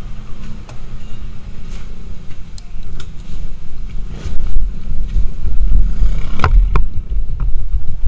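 Motorcycle engine running at low speed while ridden, with a low rumble of wind on the bike-mounted camera's microphone that grows louder after about four seconds. A few sharp knocks come near the end.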